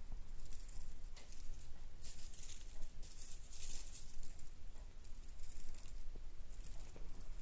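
A munchkin kitten's small paws padding and catching on a plush fleece blanket: soft rustling that is strongest from about two to four seconds in, over a low steady rumble.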